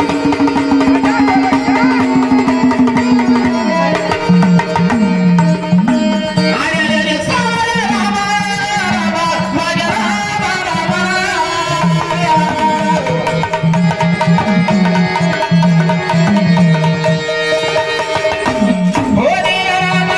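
Marathi devotional folk music: a held note for the first few seconds, then a bending melody over a steady hand-drum beat.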